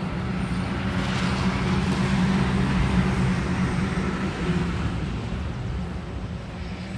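A vehicle passing, its noise swelling about a second in and fading out over the next few seconds, over a steady low hum.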